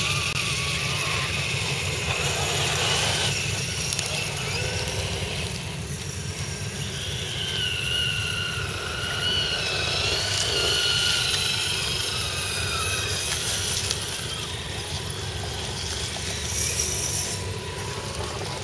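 Whine of the electric motors and geared drivetrains of radio-controlled scale crawler trucks climbing a grassy slope, wavering in pitch with the throttle, most plainly in the middle of the stretch. A steady low rumble runs underneath.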